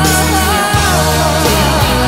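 Pop ballad music: a voice sings a wavering melody over sustained bass and chords.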